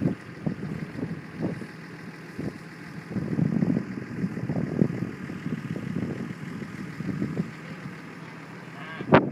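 Pickup truck engine idling, a low uneven rumble, with a brief sharp sound about nine seconds in.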